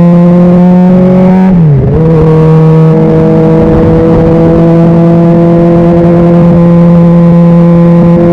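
Honda CBR600RR's inline-four engine running under way at a steady pitch. The pitch dips sharply and briefly about one and a half seconds in, then holds and creeps slowly upward.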